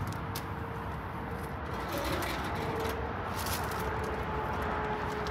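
Steady outdoor background noise with a low rumble, a faint steady tone and a few brief faint clicks.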